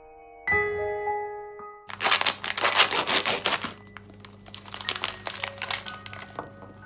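Soft piano notes, then from about two seconds in a dense, irregular crackling and clicking over a steady low hum, with quiet music continuing underneath.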